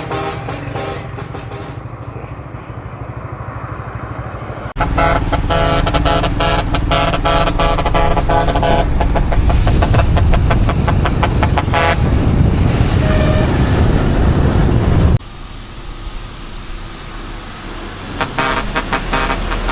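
Heavy truck diesel engines running hard with a deep rumble, and a loud multi-note air horn sounding for several seconds about five seconds in. The sound changes abruptly twice, once as it jumps louder and once as it drops back.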